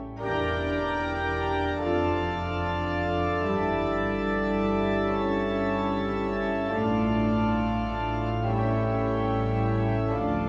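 Church organ playing slow, held chords over a low bass, the harmony changing every two or three seconds.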